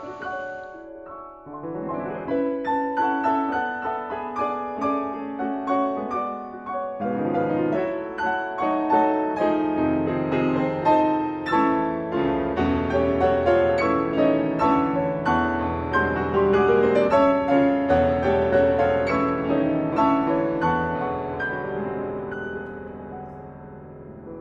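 Background music led by piano, many notes ringing and overlapping, coming in fuller about a second and a half in and thinning out near the end.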